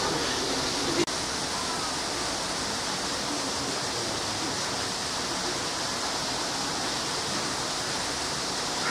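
Steady rushing hiss, with one short click about a second in.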